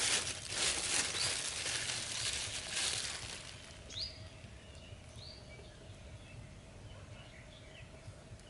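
Plastic bag rustling and crinkling as rice is scooped out of it, fading after about three seconds. After that it is quieter, with a few short bird chirps.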